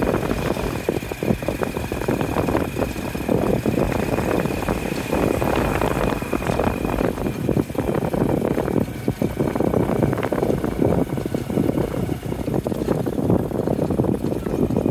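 Motorcycle-drawn tuk-tuk on the move: the motorcycle engine running steadily, with road noise and many small knocks and rattles from the carriage over a rough road. A thin high whine runs through the first half and fades out about halfway through.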